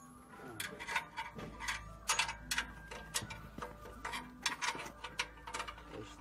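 Ratchet wrench clicking in short irregular runs as a mounting bolt is worked on a walking tractor's frame during assembly of a reaper attachment.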